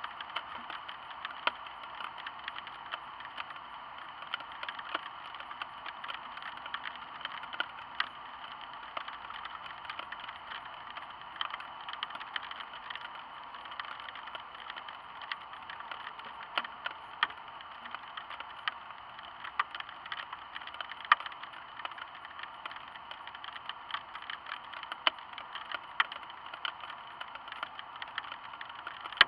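Light rain: a steady hiss with drops ticking irregularly, now and then a sharper, louder drip.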